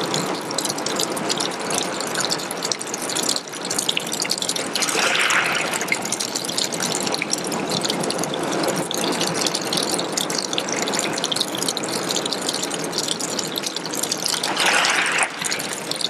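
A thin stream of water trickling down a rock face and splashing onto pebbles, a steady patter of small splashes. The sound swells briefly about five seconds in and again near the end.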